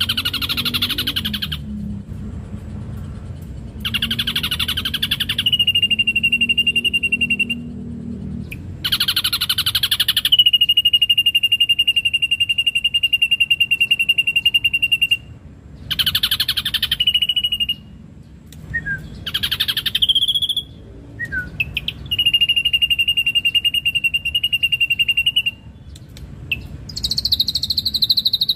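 Ashy drongo singing: harsh, buzzy phrases alternating with long, steady whistled notes, each held for several seconds.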